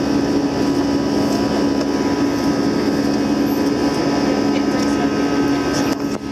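Airbus A320 jet engines running, a steady loud drone with a strong low hum and several steady tones, without rising or falling; the noise dips briefly near the end.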